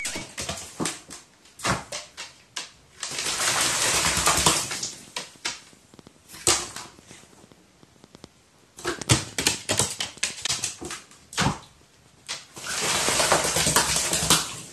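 Irregular sharp taps and clicks, with two bursts of rustling noise about two seconds long, one about three seconds in and one about twelve seconds in.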